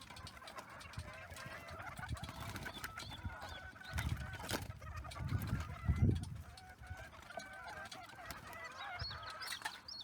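A flock of laying hens clucking and calling, many overlapping voices. A few low rumbling thuds come through about four to six seconds in.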